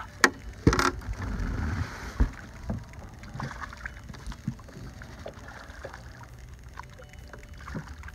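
A walleye being landed by hand into the boat: a few sharp knocks and a splashing rush in the first two seconds, then scattered light taps and clicks as the fish is handled.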